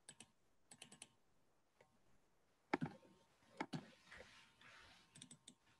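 Faint, scattered clicks from someone working a computer. Some are single and some come in quick runs of three or four, over near silence.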